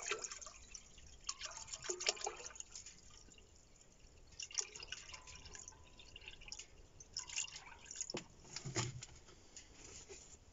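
Water dripping and trickling into a cooking pot, with scattered light clicks and knocks as the pot is readied for boiling pelmeni on the tent stove.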